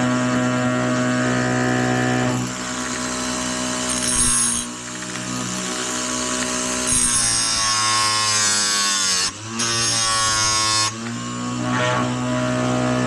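Oregon electric chainsaw-chain grinder motor running, with its wheel grinding the chain's cutters in passes. During the longest pass, in the second half, there is a bright hissing grind and the motor's pitch sags under the load, then it cuts off suddenly.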